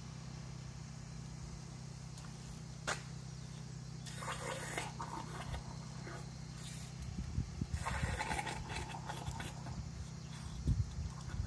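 Aerosol can of engine conditioner sprayed through a nozzle tube into a spark-plug hole in short hisses: one about 4 seconds in, a brief one near 7 seconds and a longer one about 8 seconds in. A steady low hum runs underneath, with a single click about 3 seconds in.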